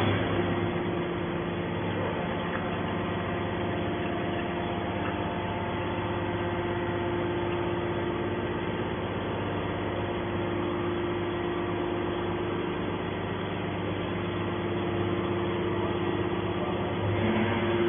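Gas engine of a scrap metal baler running steadily, a constant hum with a few held tones.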